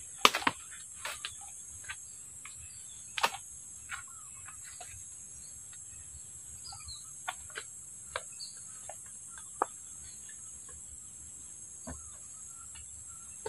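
Steady high-pitched drone of insects, with scattered short, sharp clicks and knocks. The loudest come near the start and about three seconds in.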